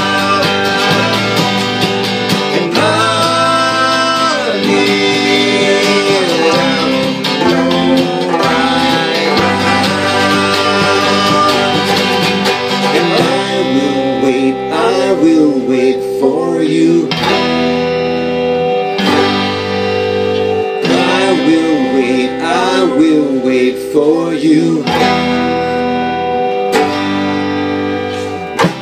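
Music: an instrumental stretch of a folk-rock song, with guitar and banjo over a steady bass line and a wavering lead melody in the second half.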